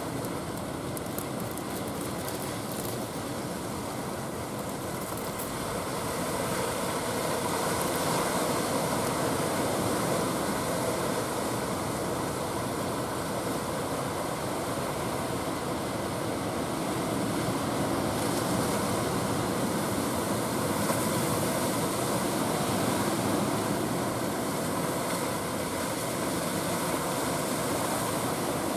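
A wooden fishing boat's engine running steadily as it heads in through rough surf, mixed with the rush of breaking waves and wind; the sound grows louder a few seconds in and then holds.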